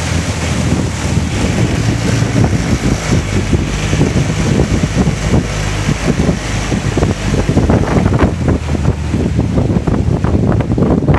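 25 hp outboard motor running at a steady cruise on an aluminium jon boat, with wind buffeting the microphone and small waves knocking against the hull.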